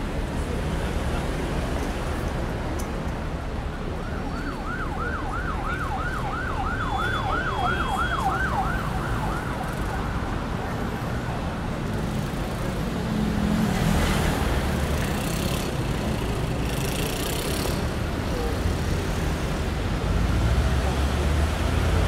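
City traffic ambience with a steady low rumble. About four seconds in, a distant emergency siren yelps for several seconds, rising and falling quickly, about two and a half times a second. Two short hisses come in the second half.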